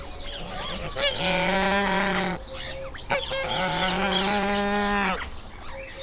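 Indian peafowl giving two long calls, each held at a steady pitch, the second one longer.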